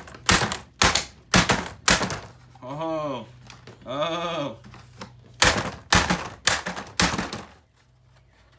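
Claw hammer striking the plastic ball housing of a Dyson ball upright vacuum: four sharp knocks in quick succession, a pause of about three seconds, then four more blows.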